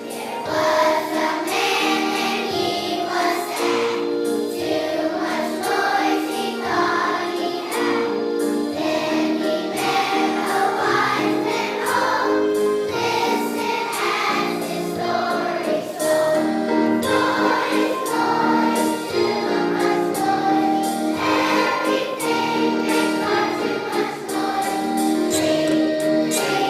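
Children's choir singing a song together with instrumental accompaniment.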